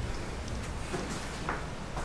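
Faint scraping and a few clicks of a screwdriver turning a Samsung dishwasher's front leveling leg, over a low rumble.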